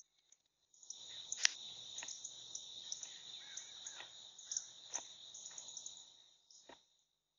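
Steady, high-pitched insect chorus, such as crickets, at two pitches, with a few sharp clicks scattered through. It is silent for the first second, then fades out about a second before the end.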